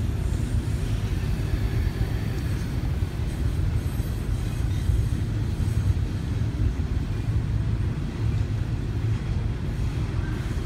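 BNSF double-stack intermodal freight train rolling past, the wheels of its container cars on the rails making a steady low rumble.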